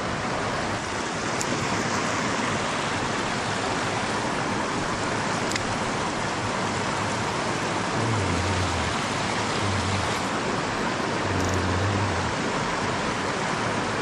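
Creek water rushing steadily over a shallow rock-ledge riffle.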